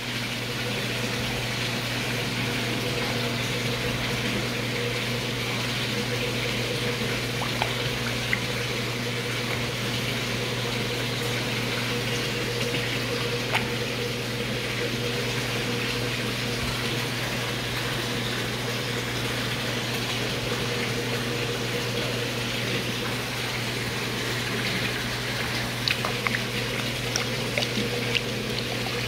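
Steady rush of circulating water with a constant low hum from an indoor pond's pump and water flow. A few small splashes near the end as a fish takes food at the surface.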